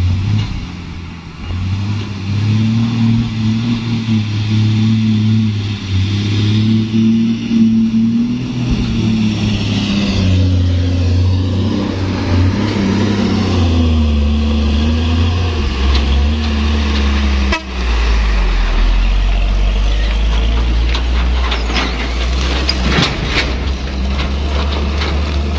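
Hino truck's diesel engine labouring on a rough road, its note rising and falling as the driver works the throttle, with a run of sharp clicks and knocks in the last few seconds.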